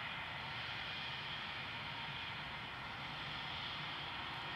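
Jet engines of a Germanwings Airbus narrow-body airliner rolling out on the runway after landing: a steady rushing hiss with a low rumble underneath.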